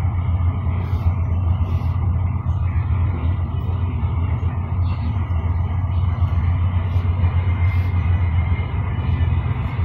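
Steady low rumble inside a Mercedes-Benz Travego coach's cabin while it cruises on the highway: engine drone and tyre and road noise.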